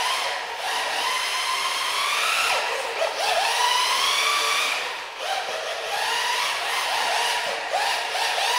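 Brushed electric motor of a 1/10 scale FTX Banzai 4WD RC drift car whining, rising and falling in pitch as the throttle is worked, with a couple of brief let-offs.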